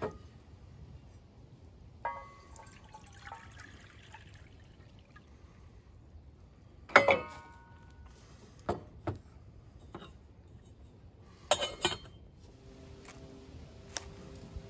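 Stainless steel cookware being handled: a few ringing metal clanks of pot, lid and cup, the loudest about halfway through and a short clatter a little later.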